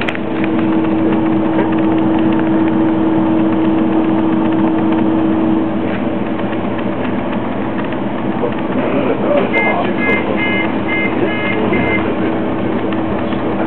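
Scania OmniCity double-decker bus heard from inside the passenger cabin, its engine running with a steady drone while the bus stands still. About ten seconds in comes a run of about six short high beeps.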